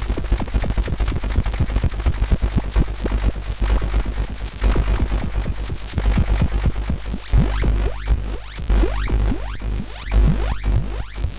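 Serge modular synthesizer patch. Self-triggering transient generator envelopes fire its oscillators, filter and amplifiers, first as a fast stream of clicking pulses over a low drone. From about seven seconds in, this changes to repeated rising chirps, about two a second.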